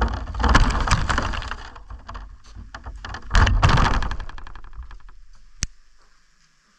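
Arrma Senton RC truck driven through snow in two bursts of throttle, the second about three seconds in, dying away to quiet with a single sharp click near the end.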